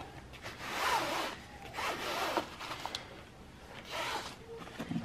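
Rubber-gloved hand swiped repeatedly across vertical blind slats, a series of rubbing swishes with short gaps between them.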